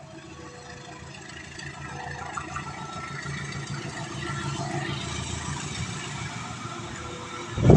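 Engines running steadily at a railroad crossing, a low hum growing gradually louder as a train approaches. Just before the end a loud train horn breaks in.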